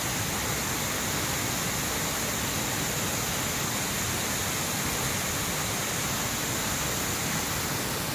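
Steady rush of water from a tall waterfall pouring and splashing down a rock face.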